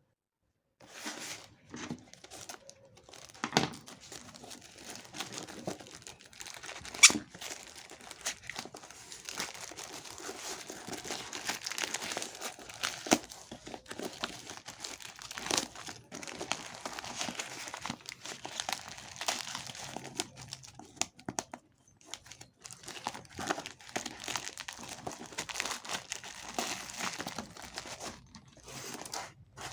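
Packaging being unwrapped by hand: continuous crinkling and tearing of wrapping, with a few sharp snaps, the loudest about seven seconds in.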